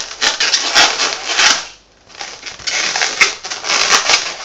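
Twisted latex modelling balloons rubbing and crunching against one another as they are handled and rearranged. The sound comes in irregular bursts with short clicks, with a brief pause about two seconds in.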